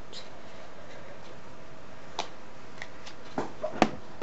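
Steady room hiss with a few light clicks and taps of handling, mostly in the second half, the sharpest a single click a little before the end.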